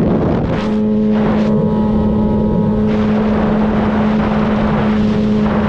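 Kawasaki ZX-10R inline-four engine running at a steady pitch while riding, under wind rush, with a brief break in the tone just after the start.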